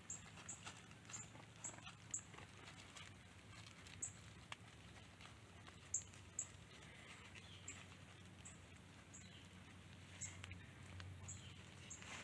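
Faint rustling and crackling of dry fallen leaves under the feet of a dog and goats walking and browsing, with scattered short, very high peeps.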